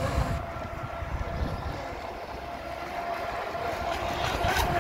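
RC speedboat's motor running with a steady whine as the boat planes across the pond.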